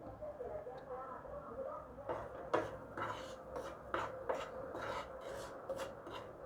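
A spoon scraping and tapping lightly against a pan as roasted semolina is stirred, about a dozen soft knocks and scrapes over a faint steady hum.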